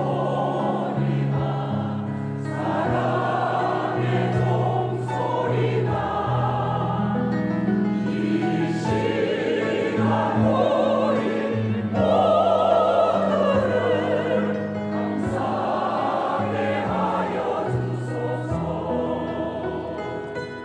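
Church choir singing a hymn with accompaniment under sustained low tones. The choir stops near the end, leaving the instruments.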